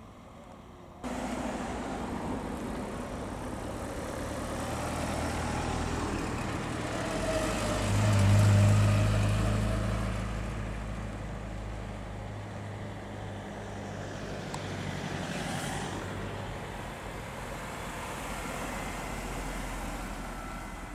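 Mini cars, a classic Mini and a newer-generation Mini among them, driving slowly past one after another with engines at low revs. The sound jumps up about a second in, and the loudest pass, a deep engine note, comes about eight to nine seconds in before fading.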